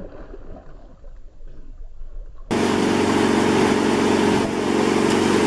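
Faint low noise, then about two and a half seconds in a 150-horsepower outboard motor starts up loud and steady, running at speed, with a rush of wind and churning wake over it.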